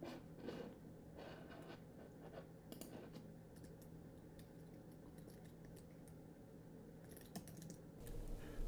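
Faint computer-keyboard typing: scattered key clicks in short runs over the first few seconds, a quiet stretch, then a few more keystrokes near the end.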